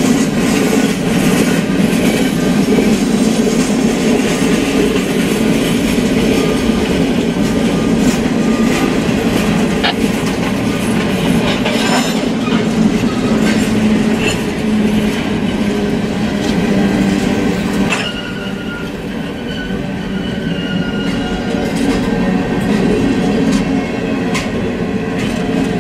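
Freight train cars rolling past: steel wheels rumbling steadily on the rails, with sharp clacks at rail joints and thin wheel squeals now and then.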